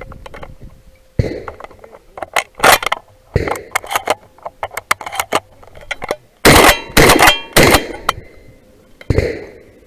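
Shotgun fired in a quick, uneven string of shots at steel targets, some shots followed by a short ringing, with smaller clicks and knocks between shots.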